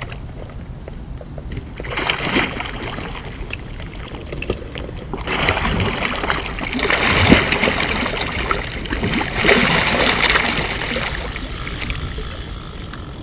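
A grass carp thrashing and splashing at the water's surface as it is brought to the landing net. Short splashes come about two seconds in, then heavy, continuous splashing from about five seconds in that dies away near the end.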